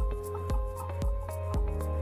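Background music with a steady beat, about two beats a second, over held tones.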